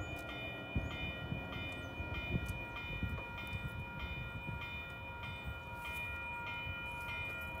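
Railroad crossing warning bell ringing in a steady repeating pattern, about one and a half rings a second, over a low rumble.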